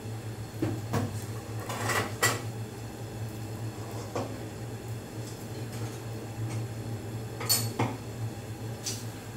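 Off-screen kitchen clatter: scattered light knocks and clinks of utensils and dishes, loudest around two seconds in and again around seven and a half seconds, over a steady low hum.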